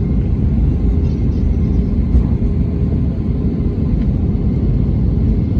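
Airliner taking off, a steady low rumble of engine and airflow noise with a faint steady hum riding on it.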